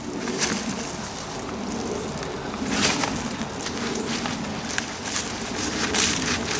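Hands and tools rustling and scraping through soil and dry sweet potato vines in a large container, a run of short crackling scrapes. A low, wavering sound comes and goes underneath.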